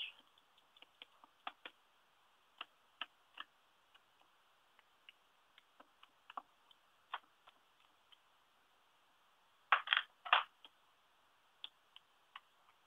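Faint taps and clicks of a StazOn ink pad being dabbed onto a stamp, with a few louder knocks about ten seconds in as the stamp is pressed down onto a paper tag.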